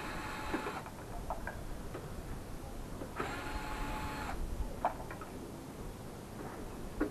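Cordless electric screwdriver whirring in short bursts about a second long, backing screws out of a sheet-metal case: once at the start and again about three seconds in. Light metallic clicks come between the bursts.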